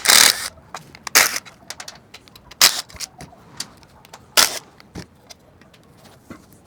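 An 8 mm socket wrench working the screws of a motorcycle sprocket cover: a few short, sharp bursts of clicking and clatter, the loudest right at the start, with small metal ticks between them.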